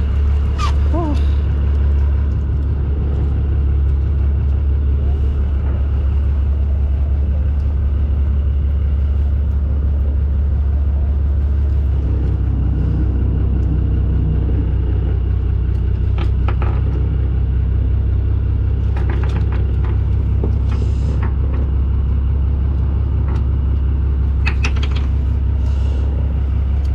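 Boat engine running, a steady low rumble. A few light clicks and rattles of tackle being handled break in now and then.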